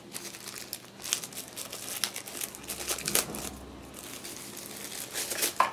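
Plastic packaging crinkling and rustling in irregular bursts as phone accessories are handled and pulled out of their wrapping during an unboxing.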